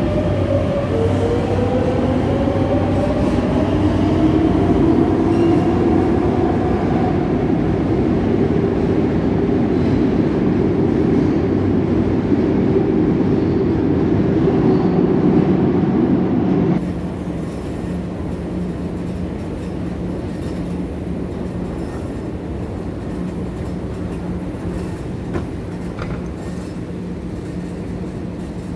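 Metro train pulling out of an underground station: its electric traction motors whine, rising in pitch as it gathers speed, over a loud rumble of wheels on rail. About two-thirds of the way through, the sound drops suddenly to a quieter, steady station hum.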